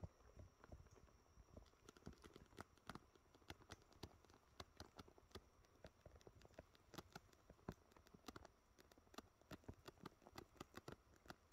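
Faint footsteps crunching on frosty forest ground, heard as a dense run of small irregular clicks and crackles.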